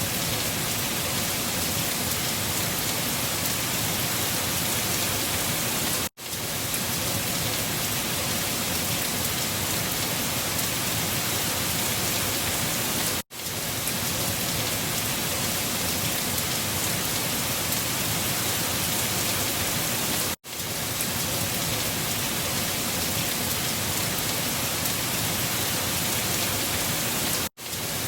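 Steady rushing hiss of a windstorm ambience, with no rise and fall of gusts. It cuts out for a moment and fades back in about every seven seconds.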